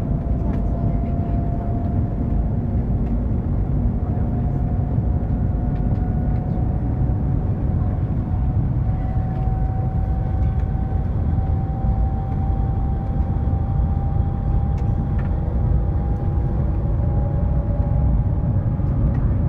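Cabin noise inside the Shanghai maglev (Transrapid) train in motion: a steady low rumble of air and running noise. A faint whine through it slowly rises in pitch as the train accelerates.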